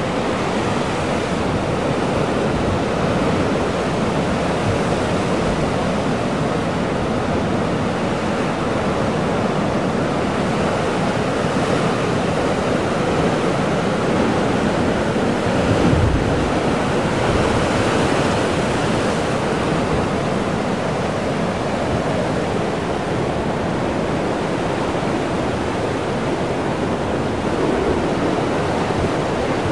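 Heavy ocean surf breaking and churning through a rocky chasm, a dense, steady wash of water noise with a deeper surge about halfway through.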